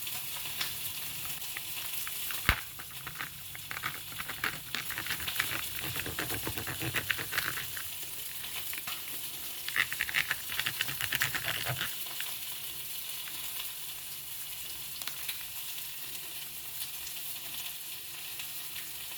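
Chicken thigh frying in a pan with a steady sizzle. A single sharp click about two seconds in is the loudest sound, and spells of light clicking and rattling follow around the middle.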